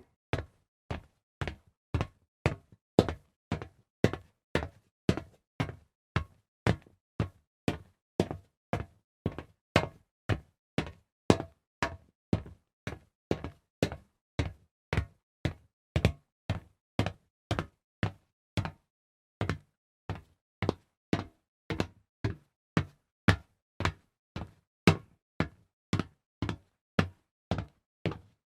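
Footsteps on a hard floor, crisp separate heel-and-toe hits at a walking pace of about two steps a second, with a brief pause about two-thirds of the way through.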